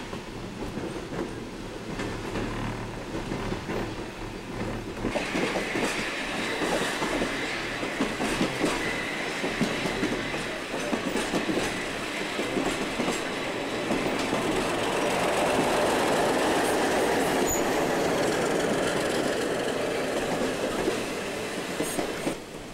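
Steel wheels of a moving rail car rolling over the track with clicking and rattling. A high steady squeal comes in about five seconds in, and the running grows louder in the later part.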